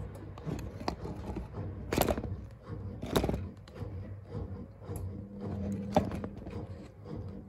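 Gorenje UseLogic front-loading washing machine on a spin-only cycle, its drum turning at tumbling speed with a steady motor hum while the wet laundry tumbles. There are louder thuds or swishes about two, three and six seconds in.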